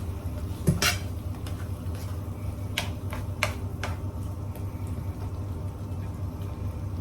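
A cooking utensil clinking and scraping against a pan as sautéed sardines and baby bok choy in a little broth are stirred: a few sharp knocks about a second in and a quick run of clinks around three to four seconds in, over a steady low hum.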